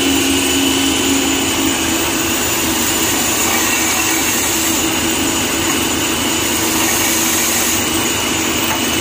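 Wood-turning machine running steadily, a motor hum with a high whine over a hiss, as a wooden garden-rake handle is sanded smooth against it with sandpaper.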